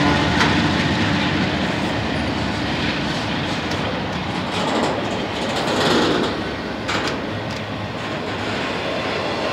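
Double-stack intermodal freight train's well cars rolling past at close range: a steady rumble of steel wheels on rail with clickety-clack and a few sharp clanks.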